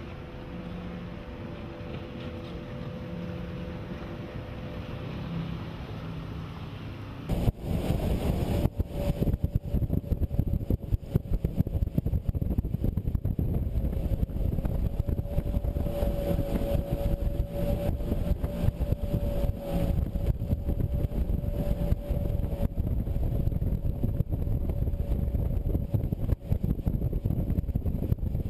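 The twin Rotax 4-TEC four-stroke engines of a Sea-Doo Islandia jet boat running at speed, a steady drone with a held engine tone. About seven seconds in, the sound turns much louder and rougher as it is heard from on board the moving boat.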